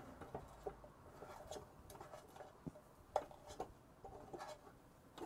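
Faint, scattered clicks and taps of a wooden utensil working noodles in a frying pan, with the sharpest click a little past three seconds in.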